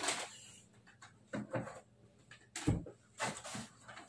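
Someone rummaging in a wooden hutch's lower shelves: a few short knocks and clatters of items being moved, with one heavier thud about midway.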